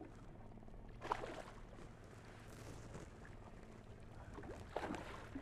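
Faint water splashing at the side of a small fishing boat, with two brief splashes, about a second in and near the end, over a low steady hum.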